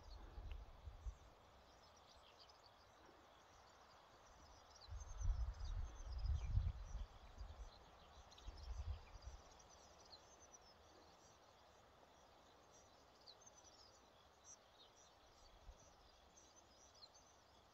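Faint open-air ambience with many small birds chirping. There is a low rumble on the microphone right at the start and again from about five to nine seconds in.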